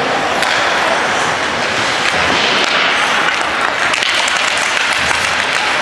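Crowd applauding in a hockey rink, a steady wash of clapping.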